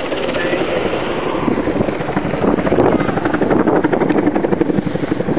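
Apache attack helicopter flying past low, its main rotor beating fast and steadily. The beat grows louder and sharper about two seconds in.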